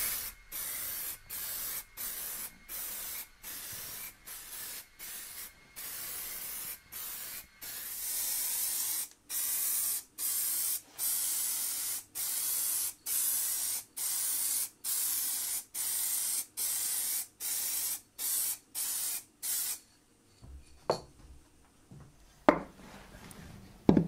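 Aerosol can of satin spray lacquer spraying in a long series of short bursts, about one to two a second, each a fine hiss, stopping about twenty seconds in. A couple of light knocks follow near the end.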